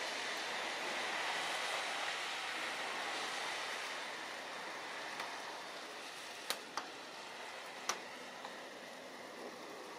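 Steady rushing wash of water from a small boat moving through the harbour, slowly fading, with a few sharp clicks about six and a half and eight seconds in.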